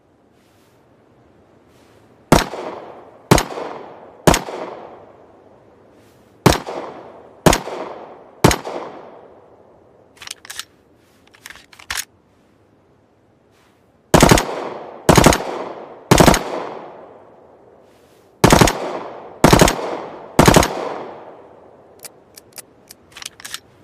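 Glock 17 9mm pistol firing twelve shots in four groups of three, about a second apart within each group, each shot followed by a long echoing decay. Fainter sharp clicks come between the second and third groups and again near the end.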